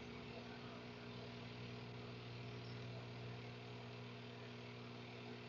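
Steady low electrical hum with a faint hiss underneath, with no other sound.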